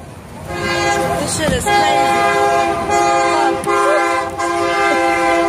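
Locomotive air horn blowing a steady chord of several tones in long blasts, with short breaks between them. A person's voice is faintly underneath.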